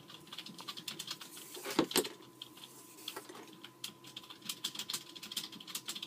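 Nylon paracord being handled and wrapped around fingers: soft rustling and many small irregular ticks as the cord slides over skin and itself, with a pair of louder knocks about two seconds in.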